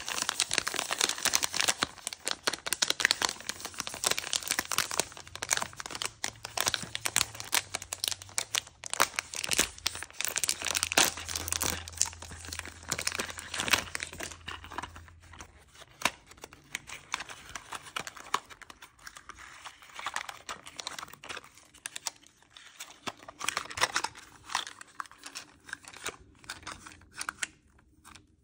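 A crinkly plastic toy wrapper is handled and torn open by hand, making dense crackling and tearing. About halfway through it thins out into scattered rustles and clicks of unpacking.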